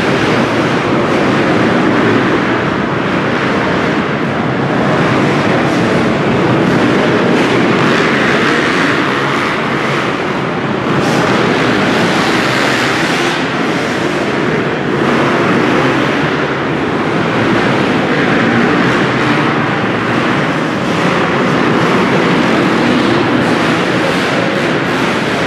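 Several motocross bikes racing, their engines revving hard and easing off so that the combined note keeps rising and falling.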